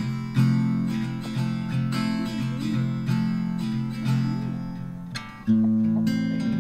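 Background music: acoustic guitar strumming chords, with fresh strums about half a second in and again about five and a half seconds in.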